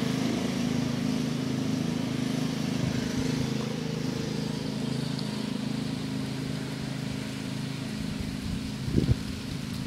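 Steady low hum of a running engine, a few even tones held without change, with a brief thump about nine seconds in.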